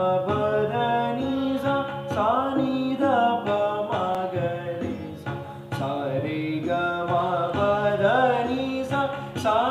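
A man singing Indian classical melodic phrases, sargam style, in steps with gliding ornaments, over a steady drone.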